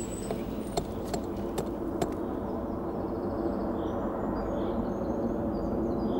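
A geological hammer striking limestone: about five sharp knocks in the first two seconds. Under them a steady low drone swells toward the end, with faint high chirps.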